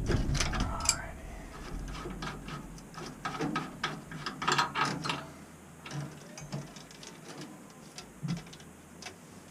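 Hand tools and metal parts being worked and handled: irregular small clicks and clatters, busiest around the middle, with a sharp knock right at the start.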